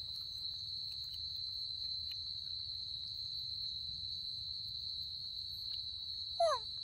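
Steady high-pitched insect drone, holding one pitch throughout. Near the end, a short falling squeak cuts in and is the loudest sound.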